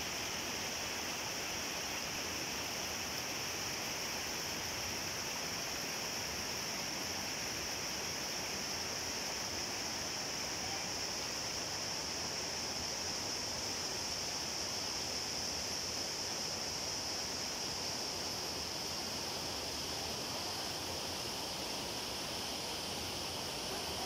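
Steady natural ambience at a spring pool: an even rushing hiss like running water, with a constant high-pitched band over it that does not change.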